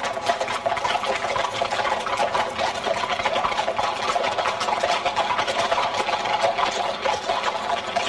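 Horse pulling a cart along a street: a steady, dense clatter of hooves and a rattling cart.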